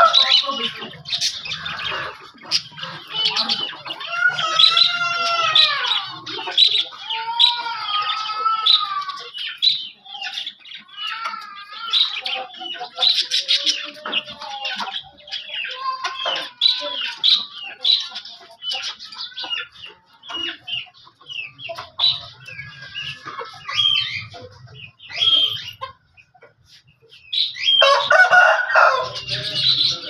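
Many caged birds calling over one another: a busy chatter of short chirps and arching, whistled calls, thinning out about two-thirds of the way through, then a louder burst of calls near the end.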